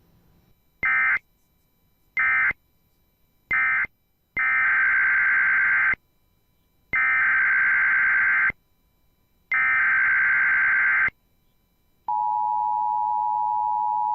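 Emergency Alert System digital signals. First come three short SAME end-of-message data bursts, then three longer SAME header data bursts for the next alert, each a harsh buzzing screech. About 12 s in, the steady two-tone EAS attention signal starts and holds.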